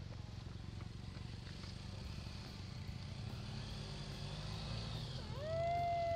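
Motorcycle engine idling with a low, steady rumble. About five seconds in, a dog lets out a long, high whine that holds one pitch and is the loudest sound.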